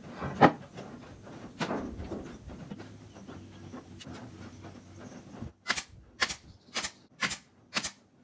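Two scattered knocks, then a run of about six sharp, even taps, roughly two a second, near the end.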